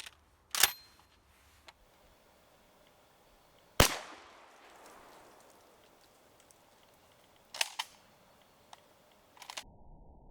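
Shotgun shots fired one at a time, several seconds apart. The loudest comes about four seconds in, with an echo trailing after it, and a quick pair follows about eight seconds in.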